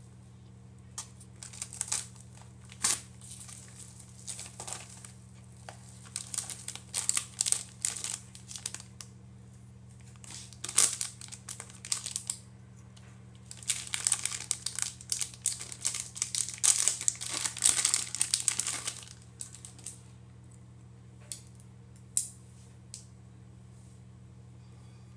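Paper and plastic packaging crinkling and rustling as it is handled and unwrapped, in irregular bursts that are busiest about two-thirds of the way through, then a few light clicks near the end.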